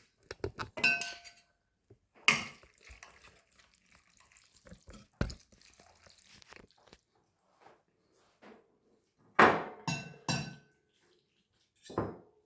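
Kitchen dishes and cutlery being handled: a series of separate clinks and knocks, several with a short ringing tone, the busiest clatter about two seconds in and again towards the end.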